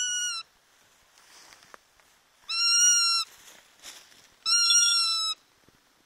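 Eurasian sparrowhawk giving three drawn-out, high, even-pitched calls, each under a second long and spaced about two seconds apart.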